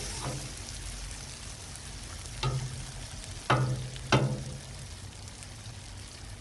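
Eggs and cheesesteak meat sizzling steadily on a Blackstone flat-top griddle. Three sharp knocks come about two and a half, three and a half and four seconds in: a metal spatula striking the steel griddle top.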